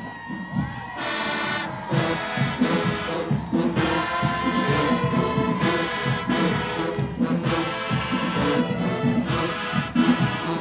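Marching band playing a loud brass tune over a drumline's steady beat, with the full band coming in about a second in.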